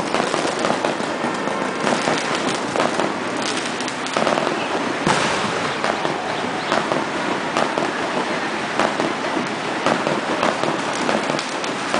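Fireworks and firecrackers going off in a dense, unbroken crackle with many sharp pops.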